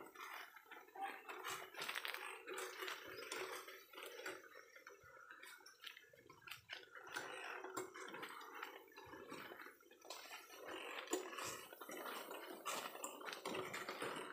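Faint, irregular rustling and light crackling clicks of leaves and dry leaf litter being brushed past and stepped on.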